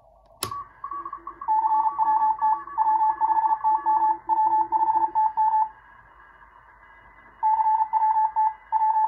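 A toggle switch clicks about half a second in, taking the Hi-Per-Mite active CW filter out of the uBITX receiver's audio. The speaker then plays Morse code from several CW stations at different pitches over band hiss. The strongest signal pauses for about two seconds midway, then resumes.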